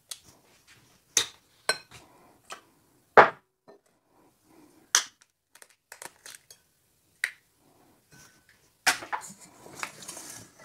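Eggs being cracked with a spoon: a series of sharp separate taps and cracks of the spoon against eggshells and clicks on a small porcelain dish, the loudest about three seconds in. Near the end comes a denser clatter as the eggs are tipped into a steel mixing bowl.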